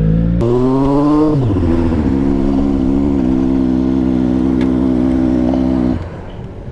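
Triumph Street Triple 765RS three-cylinder engine through a Scorpion Serket carbon exhaust, under way. The revs rise about half a second in, fall back about a second later and then hold steady. Near the end the engine note drops away as the throttle closes.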